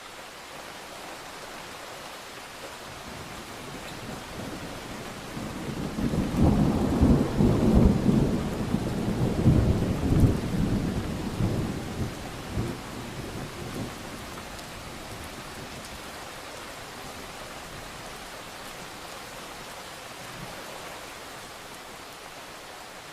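Steady rain with a clap of thunder rumbling in about five seconds in, loudest for several seconds and then rolling away, leaving the rain hiss.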